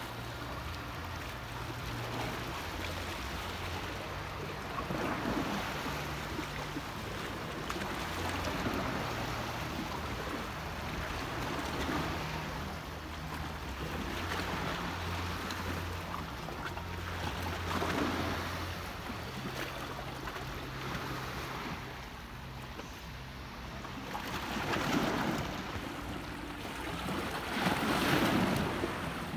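Small sea waves washing ashore, a soft swell every three or four seconds, over a low steady hum.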